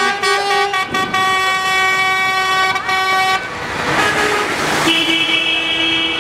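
Vehicle horns held in long steady honks. One horn sounds for about three and a half seconds and stops. After a rush of noise lasting about a second and a half, a second horn at a different pitch starts and keeps sounding.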